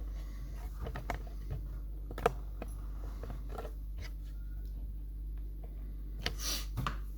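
Handling noise from a camera being repositioned: scattered small clicks and knocks, one sharper click a little over two seconds in and a brief rustle near the end, over a steady low hum.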